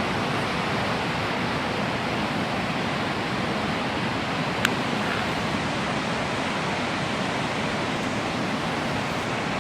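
Steady rush of ocean surf, with a single sharp click about four and a half seconds in.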